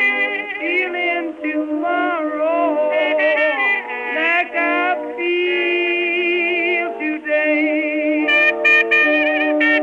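Music: a melody line with sliding pitch bends over steady held accompanying notes.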